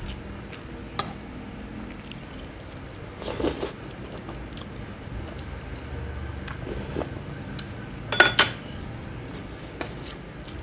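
A metal spoon clinking against a glass serving dish during a meal, with small scattered utensil ticks. The loudest moment is a quick cluster of ringing clinks about eight seconds in, with a softer, noisier burst a little past three seconds in.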